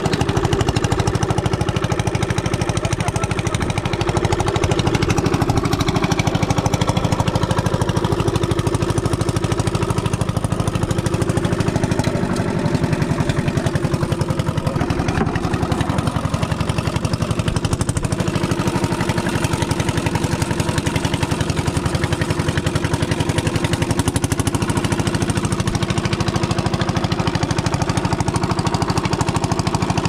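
Small inboard engine of a wooden river boat running steadily and loudly, close by.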